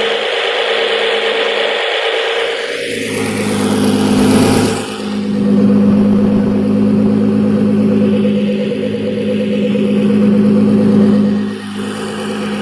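Nissan GT-R's twin-turbo V6 heard through its quad exhaust and intake, revving: the engine note climbs about three to four seconds in, dips briefly, then holds a steady high rev for about six seconds before dropping back near the end.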